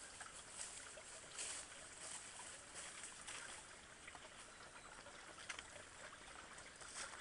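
Quiet woodland ambience: a soft steady hiss with a few faint, scattered rustles in dry leaf litter.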